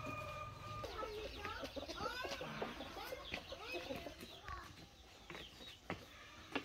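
Chickens clucking: many short, overlapping rising and falling calls that thin out after about four seconds, with a few sharp clicks near the end.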